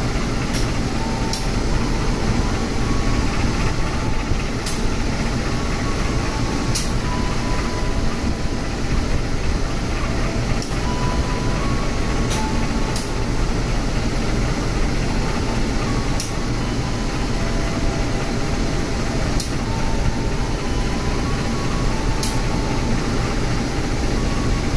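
Passenger train standing at the platform with its diesel-electric locomotive idling: a steady low rumble, with short high ticks now and then.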